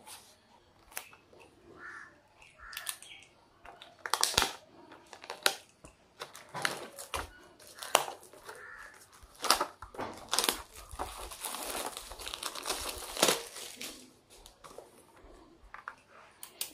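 Plastic shrink-wrap crinkling and tearing as it is peeled off a cardboard box, in irregular crackles and rustles, with a denser stretch of crinkling about two-thirds of the way through.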